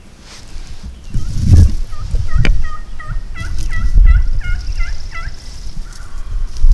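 A run of about ten turkey yelps, evenly spaced at roughly three a second, lasting about three seconds. Low rumbling thumps come about a second and a half in and again around four seconds.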